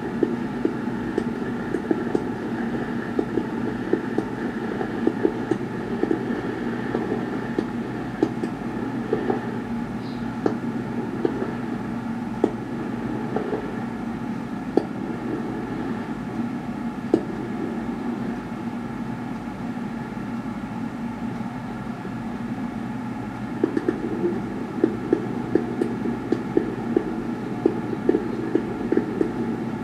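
Fireworks bangs and crackles played through a TV's speaker over a steady hum, frequent at first, sparse through the middle, and thickening again near the end.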